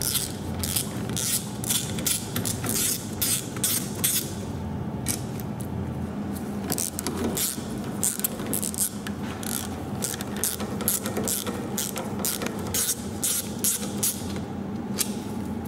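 Quarter-inch drive ratchet with a 5 mm hex bit clicking in quick irregular runs as the bolts holding a rear electric parking brake actuator are backed out, over a steady low hum.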